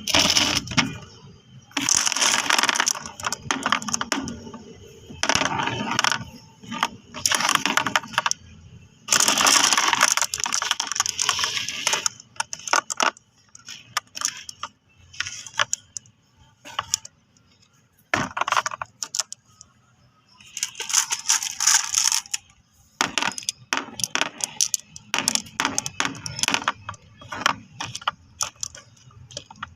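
Marbles clattering and clicking against each other, in dense rattling runs lasting a second or several, with scattered single clicks and short quiet gaps between.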